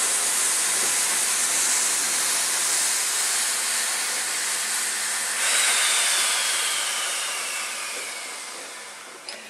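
Steam venting from an East Broad Top steam locomotive: a loud, steady hiss. About halfway through, a thin tone joins it and slides down in pitch, and then the hiss dies away, ending with a short click.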